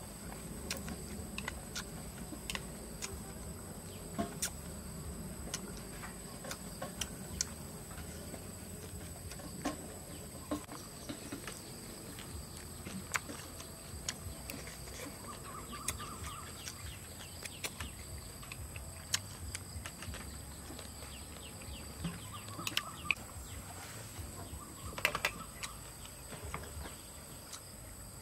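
Eating sounds: scattered sharp clicks of chopsticks against a plastic bowl and chewing, over a steady high-pitched chorus of insects.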